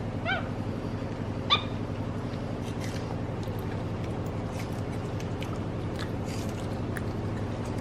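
Two short, high squeaks from a pet monkey, about a second apart, each dropping in pitch, over a steady low hum.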